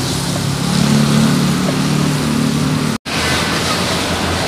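Gas stove burner running at full flame under a frying pan, a steady noise with a low hum, while sliced onions and meat sizzle as they are stirred. The sound drops out for an instant about three seconds in.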